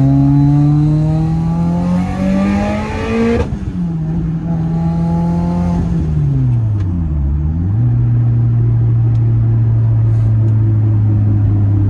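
Subaru WRX's turbocharged FA20 flat-four engine pulling under acceleration, its pitch rising for about three and a half seconds, then dropping suddenly at a gear change. The pitch dips and comes back up once more in the middle, then the engine runs steadily. It runs smoothly with the cylinder 4 misfire gone after a new direct injector: cylinder 4 roughness reads 0.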